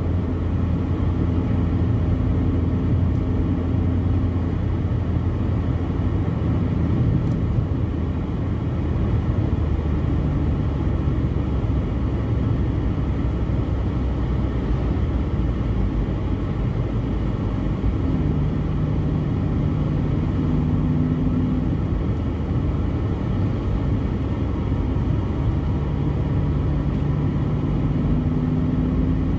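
Steady road noise heard inside a moving car: low engine hum and tyre rumble, with a faint tone that shifts in pitch a couple of times.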